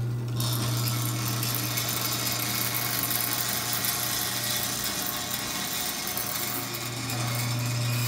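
Chamberlain chain-drive garage door opener running with the door disconnected: a steady motor hum as the chain pulls the trolley along the rail.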